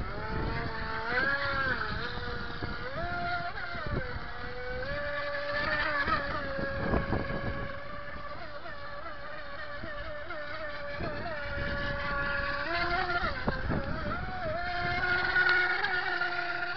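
Brushed electric motor of a Hobby King Serpent 2 Mini RC boat, run on a 7.4 V lipo, whining steadily as the boat drives by. Its pitch rises and falls several times with the throttle.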